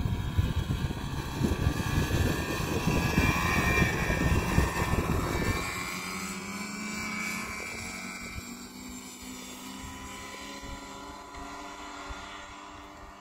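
Ski-Doo Grand Touring snowmobile engine running as it drives across the snow, with heavy low buffeting on the microphone for the first five seconds or so. After that its engine note carries on alone and fades steadily as the sled moves away.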